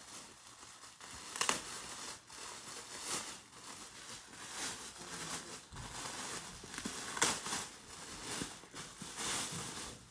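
Plastic wrapping crinkling and rustling in irregular bursts as handbags in pink plastic bags are rummaged through and lifted out of a cardboard box.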